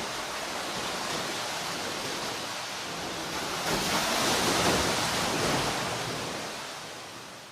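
Sea waves breaking and washing up the shore: a steady surf hiss that swells as a wave breaks about halfway through, then fades away as it draws back.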